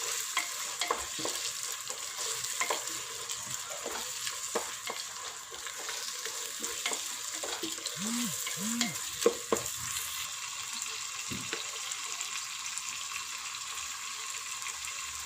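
Onion and tomato masala sizzling in a pan while a spoon stirs it, with frequent scrapes and taps of the spoon against the pan.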